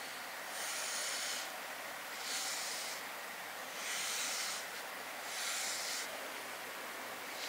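FURminator deShedding tool's steel comb raking through a short-haired cat's coat, pulling out loose undercoat: four scratchy, hissing strokes, about one every second and a half.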